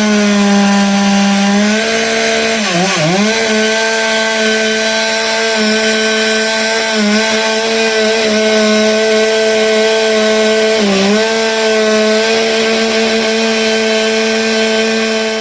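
Two-stroke chainsaw running at high revs with a steady, even pitch that dips briefly twice, about three seconds in and again near eleven seconds, as the chain bogs down in the wood.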